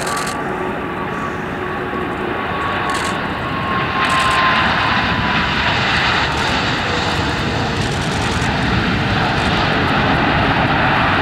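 Airbus A340-600's four Rolls-Royce Trent 556 turbofan engines during landing and roll-out: steady jet engine noise with a thin whine that slowly falls in pitch. The noise grows louder about four seconds in as the airliner comes close.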